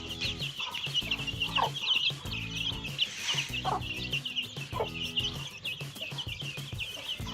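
A brood of desi chicks peeping constantly in a dense stream of short high cheeps, with the hen giving a low falling cluck now and then.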